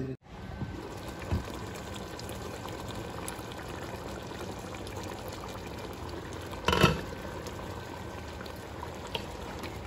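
Pot of chicken and potato curry gravy boiling on the stove, a steady bubbling. One short knock about two-thirds of the way in.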